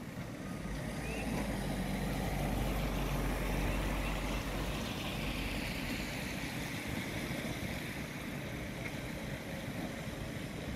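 An engine passing by, swelling over the first few seconds and then slowly fading, with wind buffeting the microphone.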